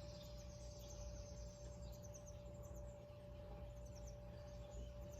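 Quiet outdoor background: faint high chirping of insects and birds over a steady hum with one constant tone.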